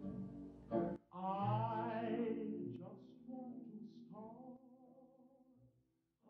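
Faint, brief musical snippets with a vocal quality: a short sung note lasting about a second and a half, starting about a second in, then a few shorter, fainter tones that die away toward the end.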